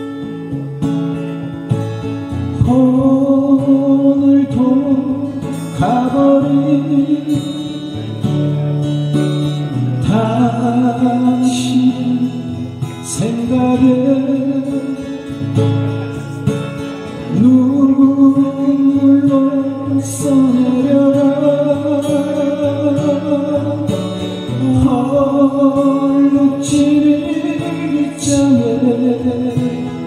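Live acoustic duo music: two acoustic guitars playing with a man singing a slow melody of long held notes.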